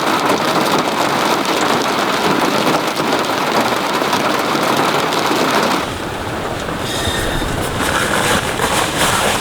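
Steady rain falling, a dense hiss of drops; the sound changes and drops a little about six seconds in.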